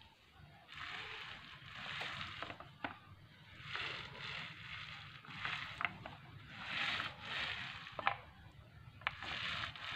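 Foam texture roller rolling back and forth over a wet cement and waterproofing-liquid coating on a wooden speaker box: a sticky, rasping swish that swells and fades with each stroke, about once a second, with a few sharp clicks.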